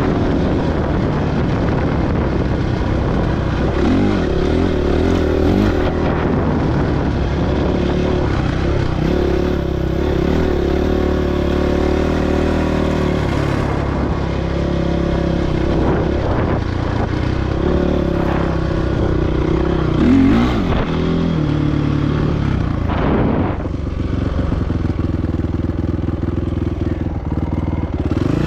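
Motorcycle engine running continuously under way, its pitch rising and falling several times as the throttle is worked.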